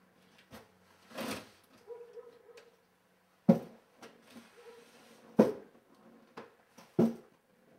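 Slow, heavy footsteps of a person in boots climbing a staircase: four loud thuds spaced about one and a half to two seconds apart, with a few softer knocks and scuffs between them.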